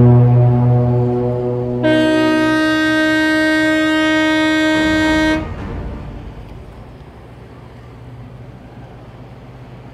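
Boat horns sounding: a deep horn blast dies away over the first two seconds, then a higher-pitched horn is held for about three and a half seconds and cuts off abruptly, leaving a quiet steady low drone.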